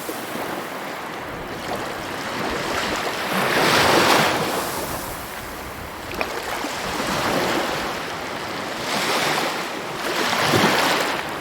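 Sea waves surging in and receding, a steady rush of surf that swells and fades every few seconds. It is loudest about four seconds in and again twice near the end.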